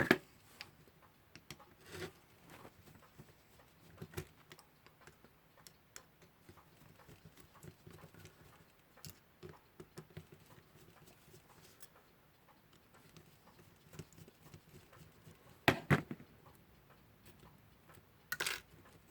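Small scattered clicks and taps of tools and metal parts as a Westclox Lark alarm clock movement is taken apart, its plates being separated. A few sharper knocks stand out, one at the start, a double one about sixteen seconds in and another near the end.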